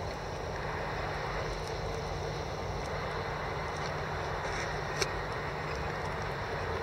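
Komatsu PW180 wheeled excavator's diesel engine running steadily at idle, with one short sharp click about five seconds in.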